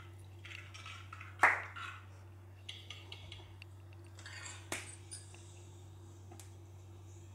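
A spoon stirring and scraping through masala in an unglazed clay pot, knocking against the pot a few times; the loudest knock comes about one and a half seconds in and another just before five seconds. A low steady hum runs underneath.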